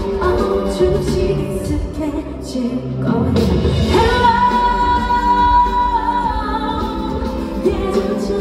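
A female singer performing a pop song live over accompaniment. She holds one long, steady note about halfway through.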